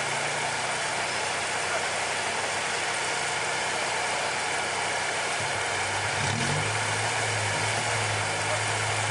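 Off-road 4x4's engine idling, rising briefly in a short rev about halfway and then settling to a steadier, stronger idle, over a steady hiss.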